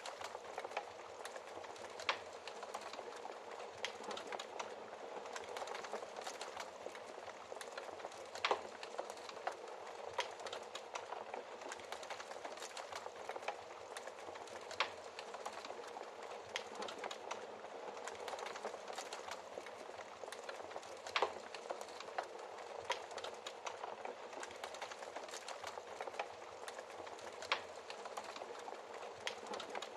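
Fire in a fireplace crackling steadily, a dense stream of small crackles with a handful of louder sharp pops every few seconds.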